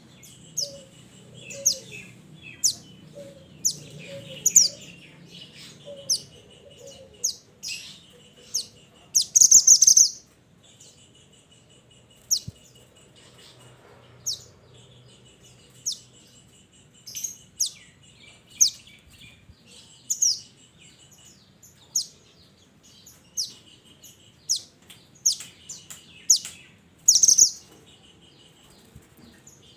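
Minivet (mantenan / sepah) calling: a series of sharp, high whistled notes, each dropping quickly in pitch, about once a second, over a thin buzzy twitter. Two louder scratchy bursts come about a third of the way in and near the end.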